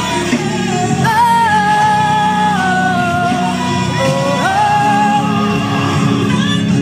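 A worship song with a singer holding long notes over instrumental backing, the voice climbing to a new held note a little past the middle.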